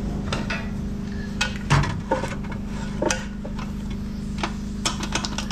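Scattered metal clinks and knocks, about ten in a few seconds with the loudest about two seconds in, as a truck's manual transmission is shifted on its support after being pulled back from the engine. A steady low hum runs underneath.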